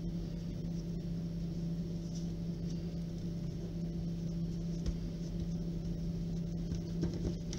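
A steady low electrical hum, with faint soft rustles of hands rolling a sheet of bread dough on a countertop.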